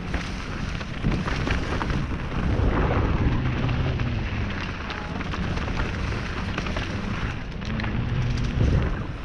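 Mountain bike descending a loose, stony trail at speed: tyres crunching over gravel and rocks, with many quick clicks and knocks of the bike rattling, over a low wind rumble on the action camera's microphone.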